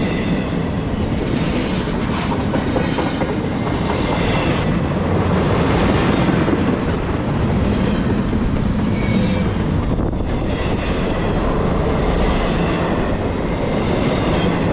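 Freight train of empty intermodal well cars rolling past close by, with a steady noise of steel wheels on the rails. A brief high-pitched wheel squeal comes about five seconds in.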